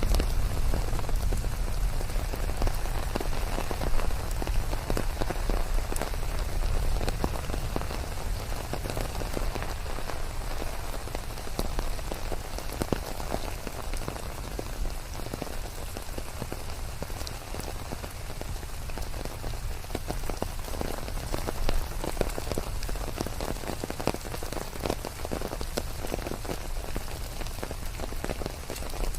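Steady rain falling, a dense patter of drops hitting surfaces over a constant hiss. A low rumble dies away at the start.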